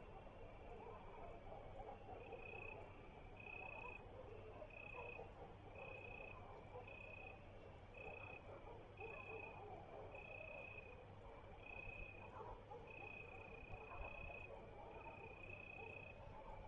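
Faint outdoor ambience picked up by a street webcam's microphone: a short chirping call repeated about once a second, over a low steady hum and a soft background hiss.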